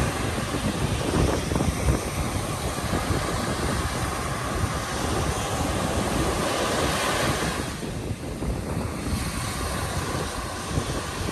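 Surf washing up the beach, with wind buffeting the microphone. The wash swells about six seconds in and falls away a couple of seconds later.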